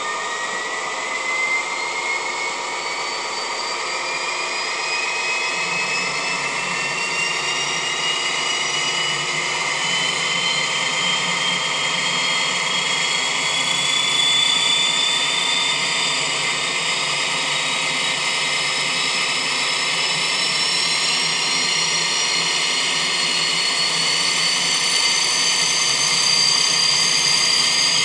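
Sound recording of a DB class 225 (ex-class 218) diesel locomotive with a 2800 hp MTU TB11 engine running under power: a steady engine din with a whine that climbs slowly in pitch and grows a little louder, a low hum joining about five seconds in.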